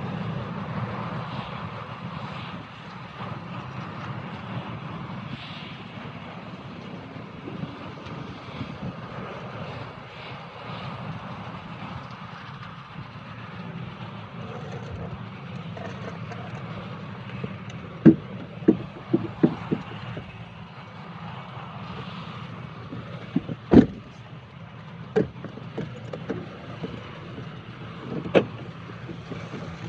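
John Deere 9660 STS combine's six-cylinder diesel engine and machinery running steadily while harvesting corn, a low even drone. A handful of sharp clicks and knocks break in over the second half.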